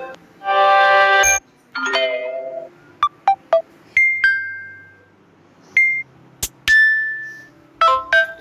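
Samsung phone notification sounds played one after another: a series of short electronic chimes and plinks, each a few notes or a single ringing tone, with short gaps between them.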